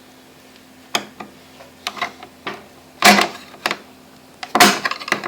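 Metal butter knife clicking and scraping against the door-latch mechanism of a front-loading washing machine: a few light clicks, then two louder scraping rattles about a second and a half apart.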